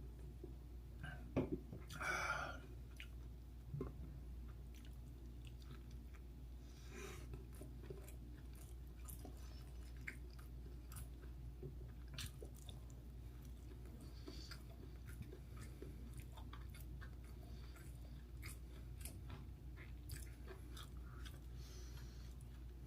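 A person chewing dumplings with soft wet mouth clicks and smacks. A louder brief noisy sound comes about two seconds in.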